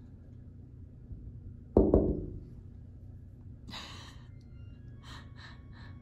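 Puffs of breath: two sharp, loud puffs about two seconds in, a longer breathy blow near the four-second mark, then three quick short huffs.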